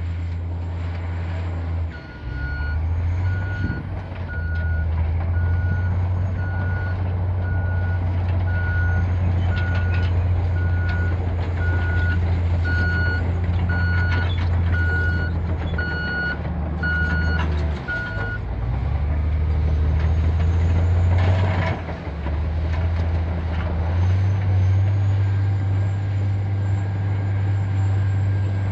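Caterpillar D10T bulldozer's C27 diesel engine running, with its reversing alarm beeping about once a second as it backs up; the alarm stops a little past the halfway point. The engine note dips briefly a few times.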